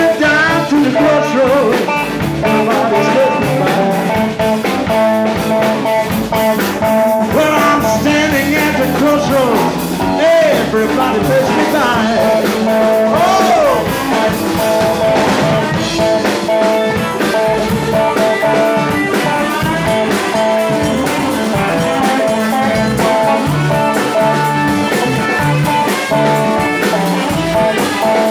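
Live electric blues band playing an instrumental stretch: electric guitars, bass and drum kit, with a blues harp (harmonica) played into the vocal microphone, its notes bending up and down.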